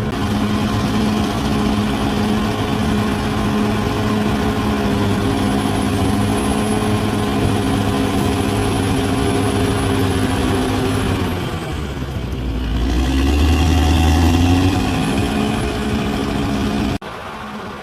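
Large bulldozer's diesel engine running steadily. About twelve seconds in it dips, then grows louder with a deeper note for a few seconds, and the sound drops off suddenly near the end.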